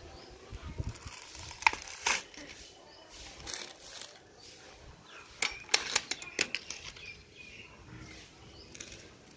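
Coconut husk being torn apart on a hand-lever coconut dehusker: dry fibrous ripping and cracking snaps, with a burst of sharp ones near the middle.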